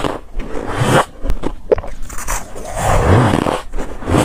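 Close-up chewing of a mouthful of powdery freezer frost (soft ice): crisp crunching in two bouts, one in the first second and a longer one from about two seconds in, with softer chewing between.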